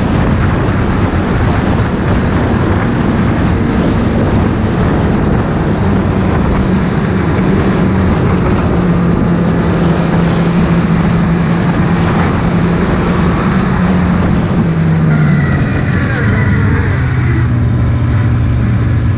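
Snowmobile engine running under way: a steady engine drone over loud rushing noise. About three-quarters of the way through, the engine note falls and settles at a lower, steady pitch.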